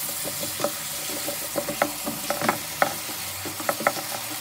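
Mushrooms sizzling and bubbling in a creamy sauce in a non-stick pan while a utensil stirs them, with a steady hiss and a scatter of sharp clicks and taps as the utensil knocks against the pan.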